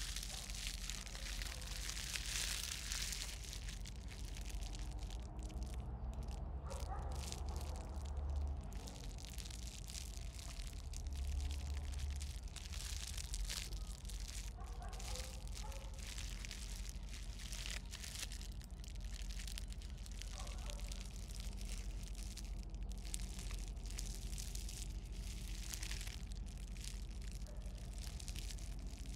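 Kittens tussling in grass and dry leaf litter: scattered rustling and scratching over a steady low rumble of outdoor background noise.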